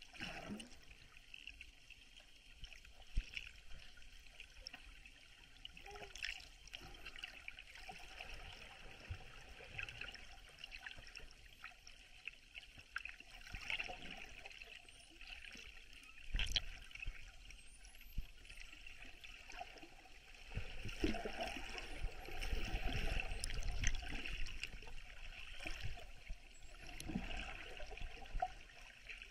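Underwater water noise picked up by a submerged camera: steady rushing and bubbling, with a few sharp knocks and a heavier, louder rumble of water movement in the second half.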